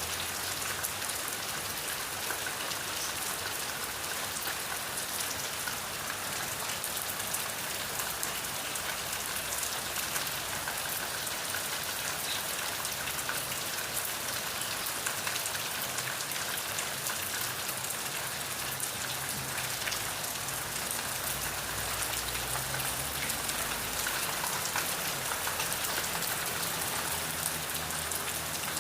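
Steady rain falling, a dense even hiss of many drops with fine individual ticks, holding a constant level throughout.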